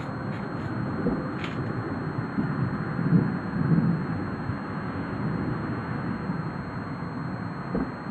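Stormy outdoor noise: wind on the microphone with a low, uneven rumble that swells about three seconds in.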